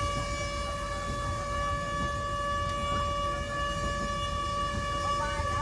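Train running, heard from on board: a low rumble under a steady high-pitched whine with overtones that holds one pitch throughout.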